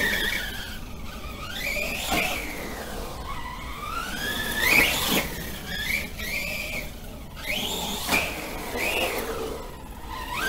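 Brushless electric motor of a Remo Hobby Dinosaurs Master 5 RC monster truck, running on a 3S battery, whining and repeatedly rising and falling in pitch as the throttle is opened and eased. A few short knocks come in among the whine.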